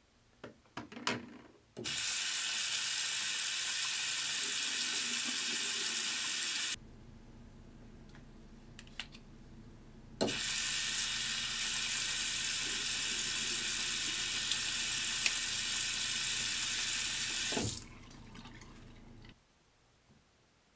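Bathroom sink tap running into a basin twice: after a few handling clicks the water comes on for about five seconds and shuts off, then comes on again about ten seconds in and runs for about seven seconds before shutting off.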